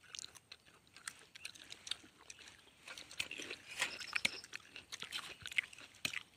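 Curved machete chopping and scraping into the fibrous stump of a wild date palm to free its edible core, with crunching close by as the raw core is chewed. A harder run of chops comes about four seconds in.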